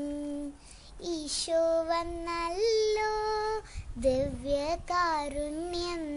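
A young girl singing a Malayalam Christian devotional song about Jesus, holding long notes that step up and down, with a short break for breath about a second in.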